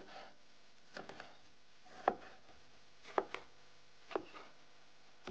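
Kitchen knife slicing a sweet pepper on a wooden cutting board: slow, even cuts about once a second, each a sharp knock of the blade on the board, some with a quick second tap.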